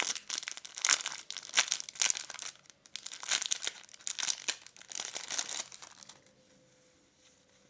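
Packet holding a microfiber lens cleaning cloth being opened by hand: irregular crinkling and tearing that stops about six seconds in.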